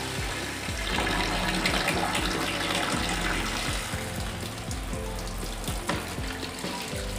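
Tap water pouring from a faucet and splashing onto turtles' shells and into a shallow plastic tub, louder for a couple of seconds about a second in. Background music plays underneath.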